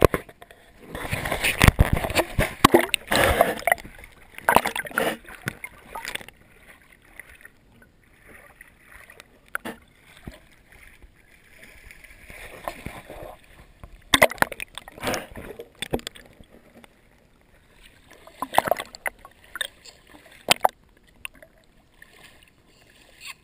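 Irregular splashing and sloshing in shallow water, heaviest in the first few seconds, then in shorter bursts twice more later on, with quieter stretches between.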